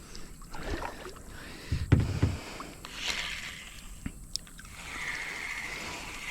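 Handling sounds aboard a kayak as a caught bass is let go: a loud thump about two seconds in, with scattered knocks and water sloshing around it.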